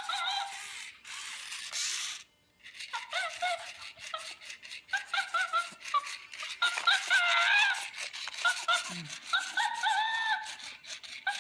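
Zoomer Chimp robot toy chattering and giggling in a high, squeaky electronic voice from its small speaker, over the whirring and clicking of its motors, with a short break a little after two seconds.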